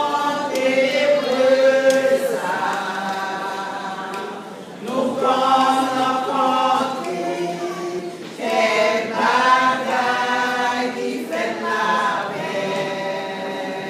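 Women's church choir singing a cappella, in phrases broken by short pauses.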